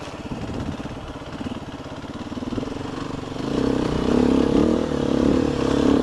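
Dirt bike engine running at low throttle along a trail. About three and a half seconds in it is opened up and gets clearly louder as the bike pulls onto a climb.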